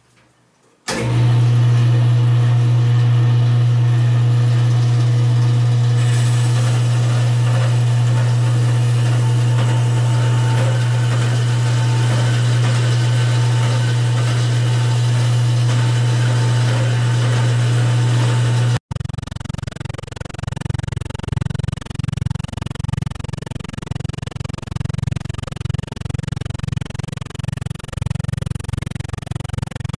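Metal-cutting bandsaw running with a loud, steady electric-motor hum that switches on about a second in, with a hiss rising a few seconds later. It cuts off abruptly at about 19 s and gives way to a different uneven, fluttering low machine rumble.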